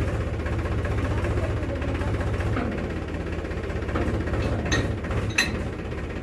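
Powertrac Euro 50 tractor's diesel engine idling steadily, with two sharp knocks near the end as the trolley drawbar is worked onto the hitch.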